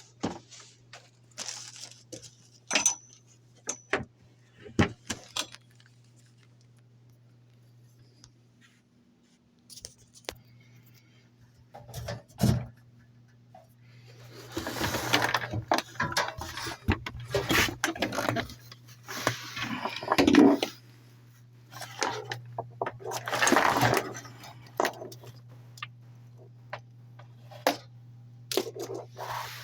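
Small hard objects being handled: scattered clicks and taps, then busier rustling and clattering from about halfway through, over a steady hum.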